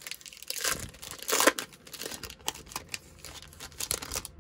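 Wrapper of a Bowman baseball card pack being torn open and crinkled, with a loud rip about a second and a half in.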